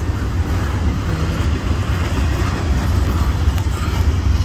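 Double-stack intermodal freight train rolling past close by: a steady low rumble with the hiss and clatter of its wheels on the rails.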